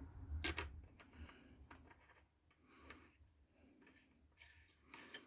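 A few faint clicks and taps as a cordless angle grinder's parts are handled, the clearest about half a second in, then only faint handling noise.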